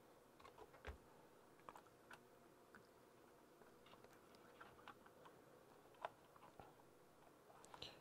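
Near silence with a few faint, scattered clicks and taps of hard plastic parts being handled and pressed together while an RC truck's receiver box is closed up.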